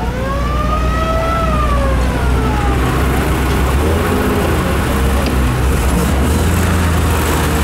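World War II jeep engine running steadily as the jeep moves off. A siren-like wail rises in pitch over the first second and then slowly falls away, fading by about three seconds in.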